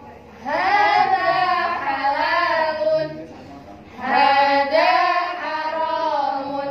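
Several voices reading Arabic syllables aloud in unison in the drawn-out, sung Ummi-method recitation melody, holding long vowels for one beat. There are two long phrases with a short pause about three seconds in.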